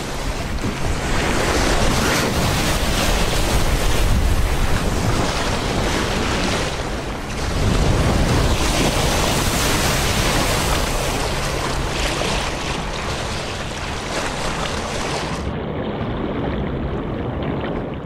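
Seawater surging and splashing as a humpback whale breaks the surface, a loud, steady rushing with no clear strokes. About three seconds before the end it turns duller, losing its hiss.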